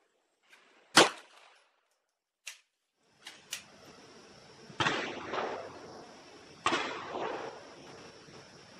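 Single shots from a Chiappa PAK-9 9mm semi-automatic AK pistol: a loud sharp crack about a second in, a faint crack, then two more shots a couple of seconds apart, each trailing off in an echo.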